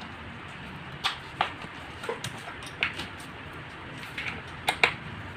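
Irregular sharp clicks and knocks of hard plastic and metal parts as an office chair armrest is fitted to the seat and a screw is set into its bracket. Some come in quick pairs, and the loudest are near the end.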